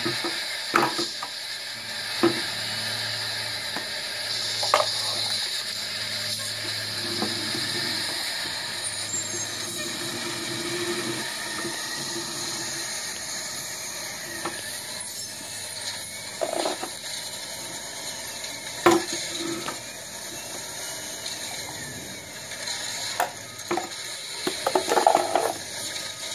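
Scattered clicks and clacks of metal kitchen tongs gripping and knocking small plastic toy trash bins on a concrete floor, with a cluster of knocks near the end, over a steady background hum.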